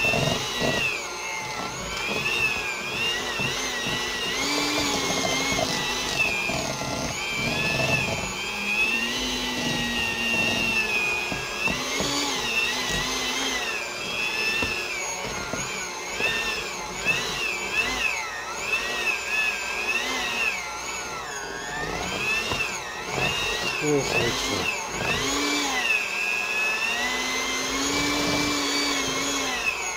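Electric mixer running continuously, its motor whine wavering up and down in pitch as it beats a thick cheesecake filling of cream cheese and peanut butter.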